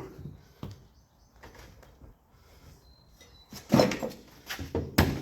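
Several sharp knocks and clunks in quick succession after a quiet stretch, from the dirt bike wheel and tire-change tools being handled and set down.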